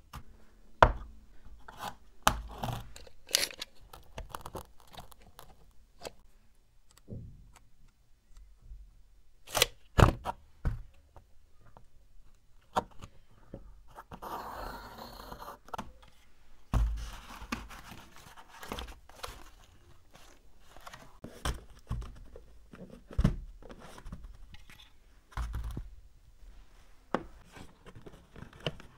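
Cardboard being handled and worked by hand on a bench: scattered taps, knocks and scrapes. About halfway through comes a couple of seconds of steady scratching as a pencil compass draws a circle on the cardboard.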